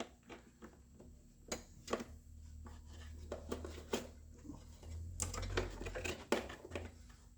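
Scattered light clicks and knocks of hand tools and small parts being handled, with a low rumble through the middle.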